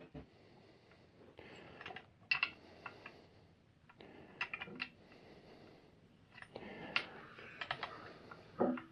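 Small metal clicks and clinks of hand tools and parts as bucking spikes are fitted to a chainsaw, a few sharp clicks at irregular intervals.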